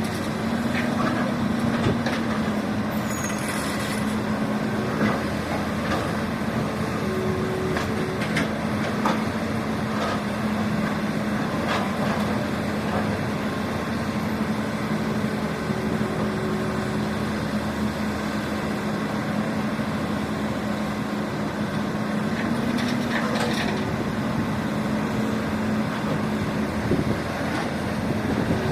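Radio-controlled model excavator and truck working: a steady motor hum at one pitch that rises briefly twice, about a second in and again near the end, with scattered light clicks and knocks.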